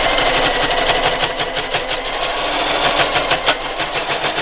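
Electric sewing machine running steadily, zigzag-stitching bias binding onto heavy fabric, with a fast, even clicking of stitches.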